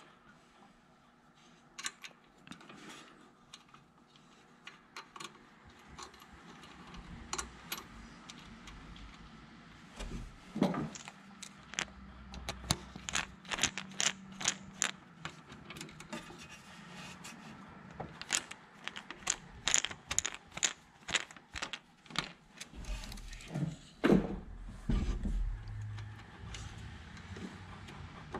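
Small metal clicks and clinks as a choke cable and its clamp are fitted to the control bracket of a Kawasaki V-twin engine with a screwdriver. The clicks are scattered at first, then come in a quick run in the middle, with a couple of louder knocks.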